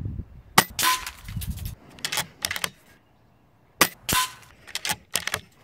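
FX Crown PCP air rifle firing two shots about three seconds apart. Each shot is a sharp crack followed a fraction of a second later by a second, ringing report. Several quicker clacks come between the shots.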